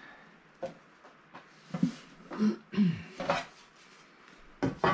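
Metal front cover of a Victron Quattro inverter being lifted off its case: a series of short metallic clanks and scrapes, with louder clanks near the end as the cover is set down.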